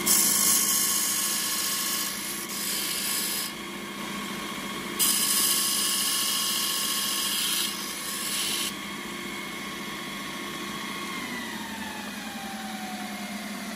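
Belt linisher running, with a flat metal bar ground against its abrasive belt in two passes, each a harsh hiss over the machine's steady hum: the first at the start for about three and a half seconds, the second from about five seconds to nearly nine. Near the end the machine runs down, its whine falling in pitch.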